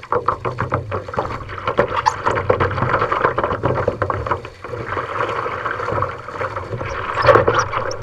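Water splashing as legs wade through shallow water beside a paddle board, in quick repeated splashes with the water running past, and a louder flurry of splashing near the end.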